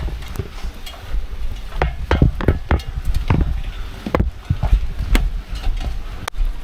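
Irregular knocks and thumps over a low rumble: footsteps and handling noise of a person climbing up toward a roof with a handheld camera.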